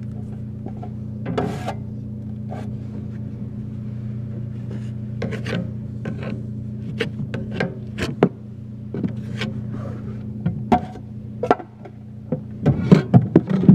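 Scattered short scraping and rubbing strokes of a tool working on a drywall patch of joint compound, over a steady low hum, with a quick run of louder strokes near the end.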